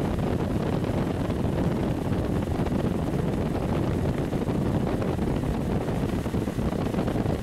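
Vortex S-Line inline duct fan running: a steady, low rush of moving air with no distinct tones.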